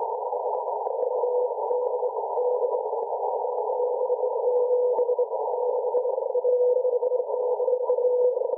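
Morse code (CW) signal received on a shortwave radio: a single beep tone keyed on and off in short and long elements, over steady static held to a narrow band by the receiver's CW filter, with faint crackles.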